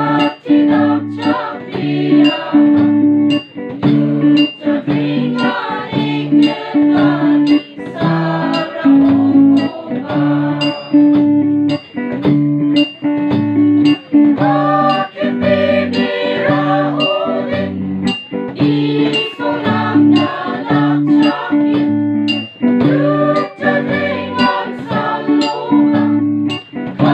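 Church choir song: voices singing over plucked guitar, a bass line and a steady beat.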